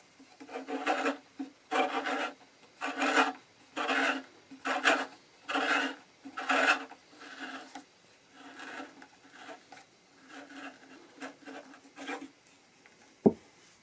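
Tapered cello end pin reamer twisted back and forth in the end-pin hole of an acoustic guitar's wooden end block: a rhythmic rasping scrape with each turn, about one a second, the strokes growing fainter after about seven seconds. A single sharp click near the end.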